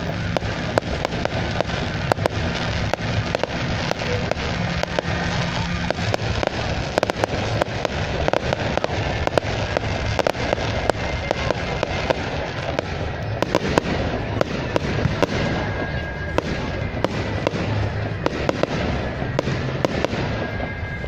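Firework display going off continuously: a dense run of rapid crackles and bangs with no pause.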